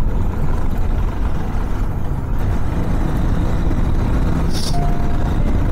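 Riding noise from a KTM 390 Adventure's single-cylinder engine on the move, with wind rushing steadily over the microphone.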